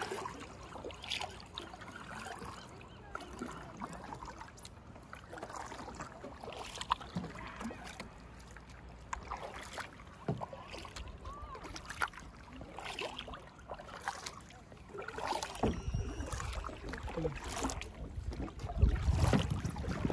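Kayak paddle strokes in calm water: irregular splashes and drips from the paddle blades. A louder low rumble comes in over the last few seconds.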